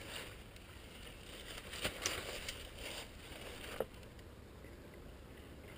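Soft rustling and crunching of a player moving through forest undergrowth, with a few short sharp clicks about two seconds in and one just before four seconds.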